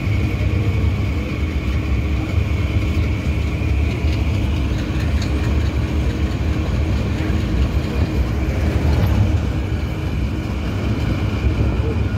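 Train running at speed, heard from on board: a steady, loud rumble of wheels on the rails with a constant higher hum over it.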